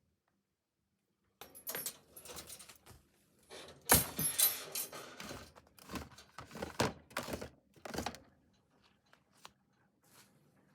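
Metal rattling and clanking, like a wire rabbit cage being opened, with a string of knocks and the sharpest clank about four seconds in.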